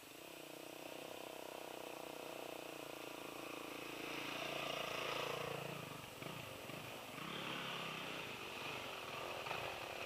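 Dirt bike engines revving, rising and falling in pitch, and growing louder through the middle of the stretch as a bike rides toward the microphone.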